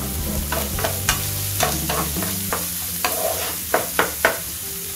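Chopped onions frying in oil in a non-stick frying pan, sizzling as they are sautéed toward golden brown, while a spatula stirs them with repeated sharp scrapes and taps against the pan.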